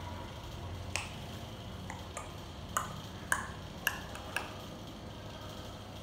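A series of about seven short, sharp clicks, the last four the loudest and about half a second apart, over a steady low hum.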